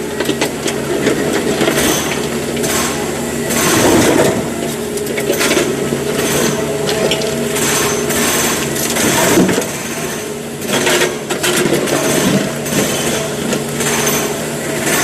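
SANY hydraulic excavator's diesel engine running steadily, with frequent clanks and rattles on top of the hum.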